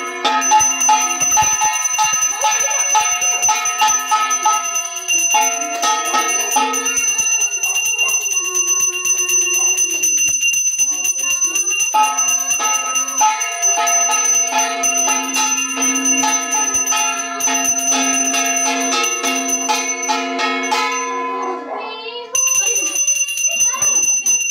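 A puja hand bell rung rapidly and continuously over music. The ringing breaks off for a moment near the end, then resumes.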